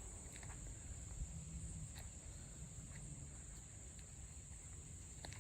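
Faint, steady insect chorus: an unbroken high-pitched trill over a low rumble, with a few faint ticks.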